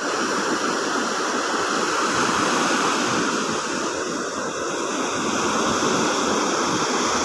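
Rushing water making a steady, even roar with no breaks.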